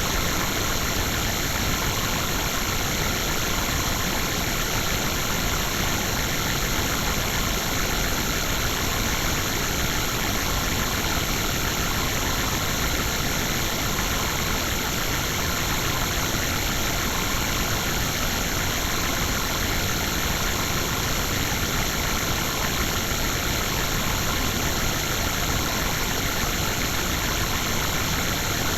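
Steady, dense, harsh electronic noise from a digitally processed, ring-modulated effect edit. It stays unchanged throughout, with fixed bright bands and no rhythm or pitch movement.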